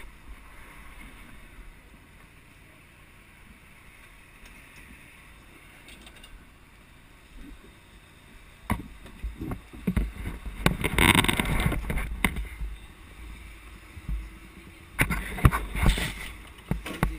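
Rumbling wind buffeting and handling noise on a helmet camera's microphone as the helmet is moved about. Quiet for the first several seconds, then two loud rough stretches, one in the middle and one near the end.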